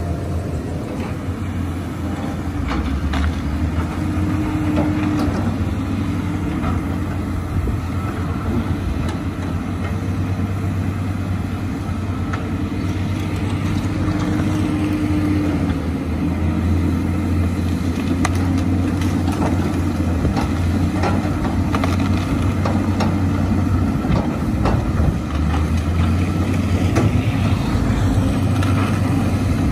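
Diesel engines of Caterpillar 320C hydraulic excavators running steadily under digging load, with a crawler bulldozer working alongside. Scattered faint knocks from the machines working the soil.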